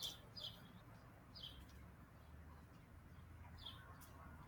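Faint bird chirps: a few short, high calls, each sliding down in pitch, scattered over a quiet background.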